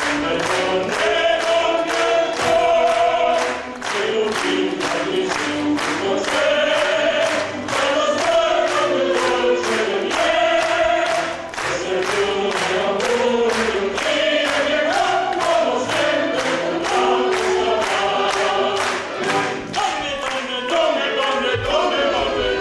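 Cast and chorus singing a lively operetta tune with music while the audience claps along in time, about two claps a second.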